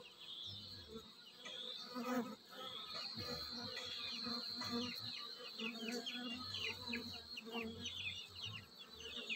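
Honeybees buzzing in flight at the entrance of their nest in a hollow log, the buzz swelling and fading as single bees pass close. A run of quick, high chirps sounds in the background from about three seconds in.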